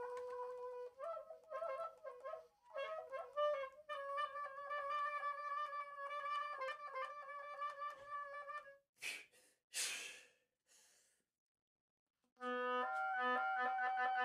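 Solo oboe playing held notes and short phrases, then two breathy, noisy air blows with no clear pitch, the 'weird air sounds' of a contemporary extended-technique piece. After a short silence, a new held, richly overtoned note begins near the end.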